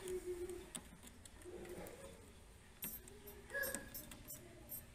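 Small scattered clicks and taps as fingers work a flat flexible ribbon cable into the connector on an LCD TV's T-CON board, the cable being hard to seat.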